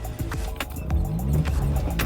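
Background music over a Suzuki Jimny's engine, which rises in revs about a second in, with scattered sharp clicks.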